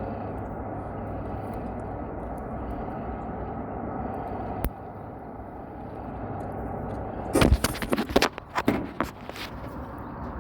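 Hands working on control wiring: a sharp click about halfway through, then a run of loud clicks, taps and rustling a little later while wires are twisted together with wire nuts. Under it runs a steady low background rumble.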